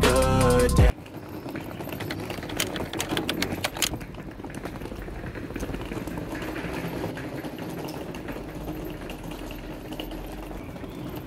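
Background music cuts off about a second in. Then the small wheels of a rolling suitcase rattle over paving stones in a fast run of clicks, which is strongest over the next few seconds and then settles into a steadier rumble with street noise.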